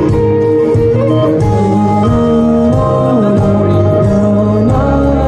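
Live rock band playing through an outdoor concert PA, heard from the crowd: guitars and bass under a held, gliding sung melody.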